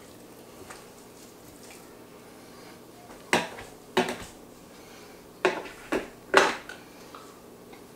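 About five short knocks and clatters of kitchen items being handled on a countertop, starting about three seconds in; the last is the loudest.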